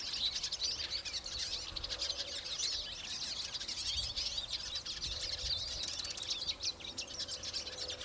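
Hooded siskins singing: a long, unbroken run of rapid, high twittering and whistled notes.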